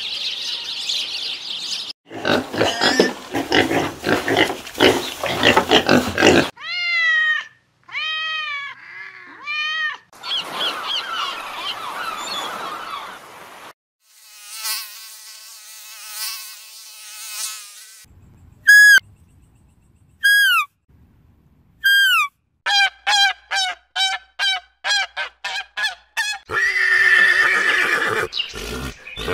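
A run of different animal sounds played one after another: arched chirping calls, a buzzing stretch in the middle, three falling whistled calls, then a rapid series of short calls. Near the end a horse whinnies.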